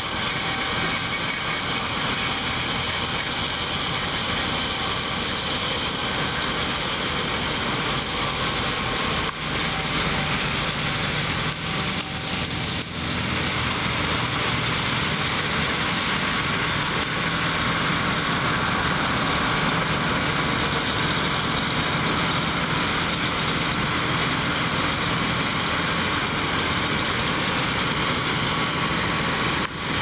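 Massey Ferguson 860 combine harvester running steadily while cutting wheat: a continuous drone of its engine and threshing machinery.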